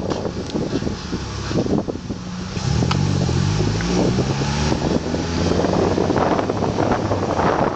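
Honda Accord rolling with heavy wind buffeting on the microphone, a low engine hum rising for a few seconds midway, and a few short knocks. The knocks are the driver's-side clunk that comes only under braking, which the owner later traced to a binding brake caliper.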